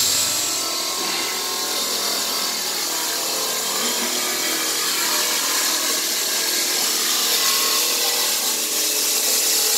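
CNC plasma cutter with an LGK-63 IGBT air plasma power source running: a steady, high-pitched hiss of the torch's air and arc, growing a little louder toward the end.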